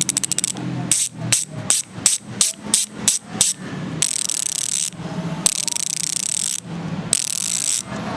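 Ratcheting of a Speed 1 Torpedo six-pawl rear hub's freehub as it is spun and freewheels: rapid clicking that slows into separate clicks about one to three seconds in, then three spells of fast, continuous buzzing. It is noisy.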